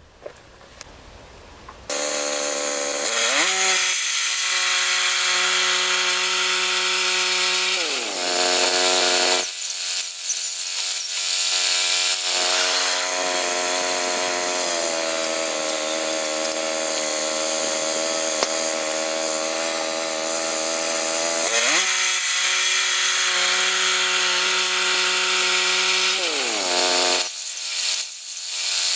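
Gas-powered sawmill running and cutting a log into lumber, starting about two seconds in. The engine note slides down and back up several times as the cut loads it.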